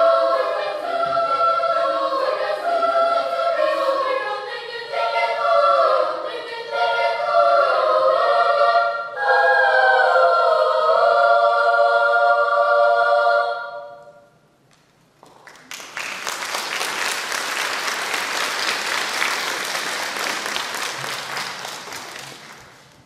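Children's choir singing in harmony, ending on a long held chord that stops about halfway through. After a short pause, audience applause follows and fades near the end.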